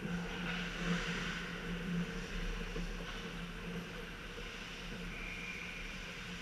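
Indoor ice rink during a hockey game: a steady low hum, with faint distant scraping and clatter of skates and sticks on the ice that swells briefly about one and two seconds in.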